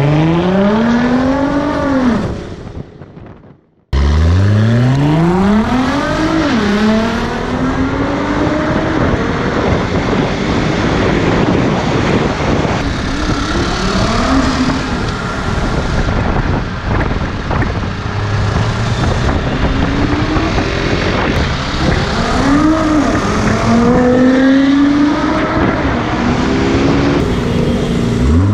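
Nissan GT-R's twin-turbo V6 through an Fi aftermarket exhaust, accelerating hard several times: the engine note climbs in steep rising sweeps and falls back off, over a steady haze of traffic and wind noise. The sound drops out briefly about three seconds in.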